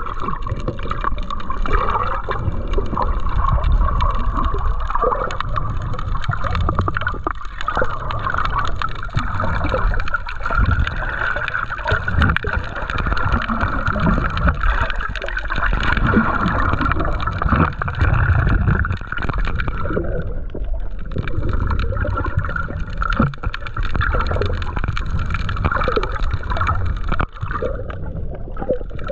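Muffled underwater gurgling and sloshing: water moving around a GoPro camera in its waterproof housing while snorkeling.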